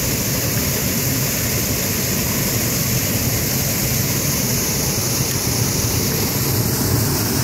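Steady rushing of a fast river's water tumbling through shallow white-water rapids.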